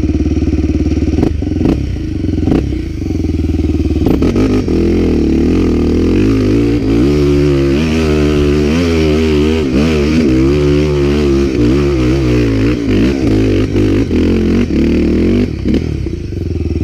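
Dirt bike engines running: steady at first, then from about four seconds in an engine revving up and down again and again as the throttle is worked, easing off near the end. A few sharp clicks come in the first three seconds.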